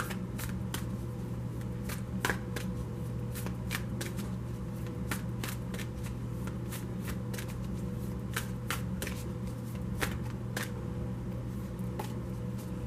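A deck of large tarot cards being shuffled by hand: a string of irregular short slaps and riffles of card against card, over a steady low hum.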